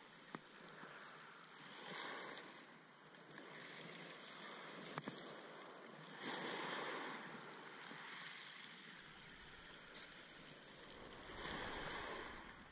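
Spinning reel being wound on a lure retrieve, its gears giving a fine whirring rattle in short spells. Small waves wash around the groyne in slow swells underneath.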